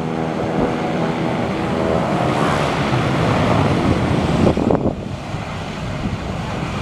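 Twin Pratt & Whitney PT6A-42 turboprop engines of a Beechcraft B200 Super King Air running at taxi power, a steady propeller-and-turbine hum. Heavy wind noise on the microphone, with a strong gust about two-thirds of the way in.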